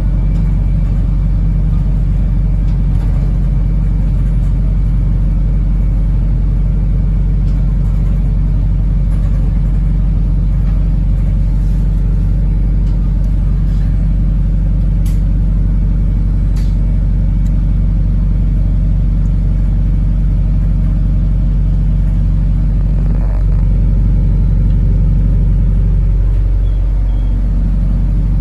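Steady low drone of a Wrightbus New Routemaster bus, heard from inside the passenger cabin while riding, with a short knock about 23 seconds in and a slight change in the engine note after it.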